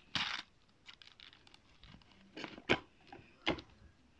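Packaging being handled: a few short rustles and scrapes of cardboard and plastic packaging, one at the start, another about two and a half seconds in and one more a second later.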